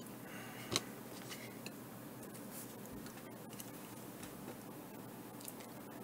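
A few light clicks and taps over faint steady background hiss, the loudest just under a second in, from a small circuit board and a soldering iron being handled and set in place.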